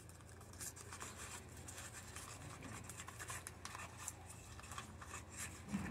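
Spoon stirring a thick paste of mashed aloe vera and honey in a small plastic tub, making faint, irregular scraping and ticking against the sides and bottom.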